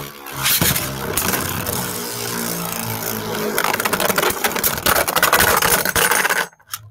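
Beyblade Burst spinning tops whirring and clashing in a plastic stadium. A whine falls slowly in pitch, then comes rapid clattering from hits in the second half, and the sound cuts off suddenly near the end.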